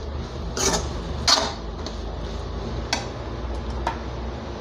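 Metal spatula scraping and knocking against an aluminium kadai while stirring a dry, crumbly egg and amaranth-leaf scramble, a few strokes about a second apart.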